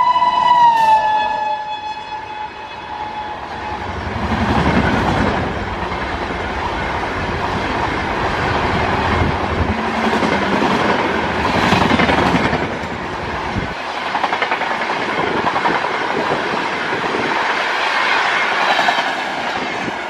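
The horn of a passing WAP7 electric locomotive, a shrill pitched blast that drops in pitch as it goes by about a second in and dies away within the next second or two. After it, the passenger coaches roll past. Their wheels clatter over the rails, swelling and fading several times.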